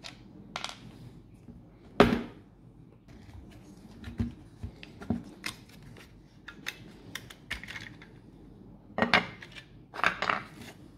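The plastic casing, screws and small parts of a DeWalt Flexvolt battery pack being handled during disassembly: scattered clicks, taps and plastic knocks, with louder knocks about two seconds in and again near the end.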